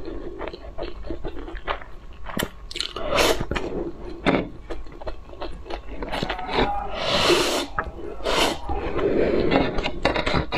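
Close-up eating of pink noodles: wet slurping and chewing with many short mouth clicks, and a longer slurp about seven seconds in.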